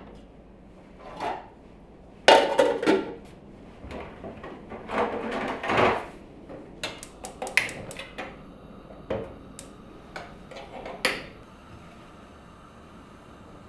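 Cookware clatter: an aluminium pot lid lifted and set back on a pot, with utensils knocking against pans, in a series of short clanks and knocks, the loudest a little over two seconds in.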